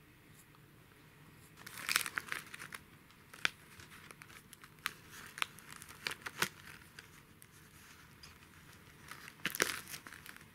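Crinkling of a glossy plastic cat-treat packet as it is handled: a burst of crinkling about two seconds in, scattered sharp crackles through the middle, and another burst near the end.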